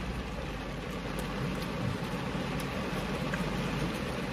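Steady rain on the roof and windows of a car, heard from inside the cabin as an even hiss with faint scattered ticks.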